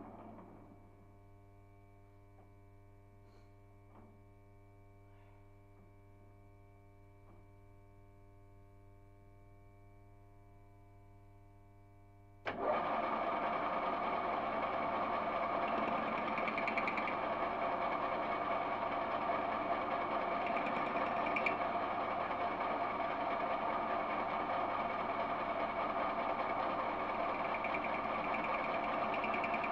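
Metal lathe spinning down, then a low steady hum with a few faint clicks for about eleven seconds. About twelve seconds in the lathe is switched on and runs steadily with a whirring gear-train noise.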